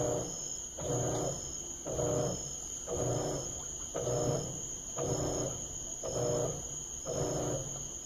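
Electrolux LT12F top-loading washing machine agitating a full load in water: the agitator motor hums in even strokes, about one a second. The machine is quite quiet.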